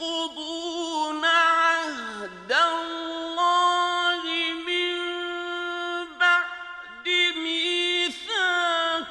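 A man reciting the Quran in the melodic mujawwad style: long, high held notes with quick ornamental turns, broken by a few short breaths.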